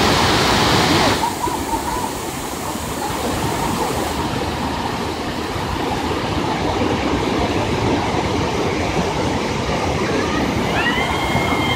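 River rapids rushing steadily, louder and brighter for about the first second. Near the end a brief high tone rises and then holds over the water noise.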